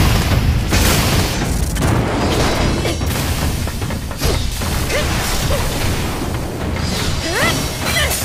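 Anime battle sound effects: repeated booming blasts and impacts over a dense, loud rumble, with background music underneath.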